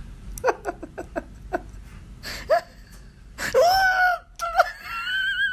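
A cat crying: a quick run of short high cries, then a longer cry that rises and falls, and near the end a steady, wavering high-pitched call.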